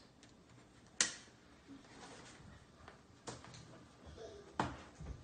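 Plastic side-release buckles on a fabric trunk organizer being snapped together: a sharp click about a second in, then two more near the end.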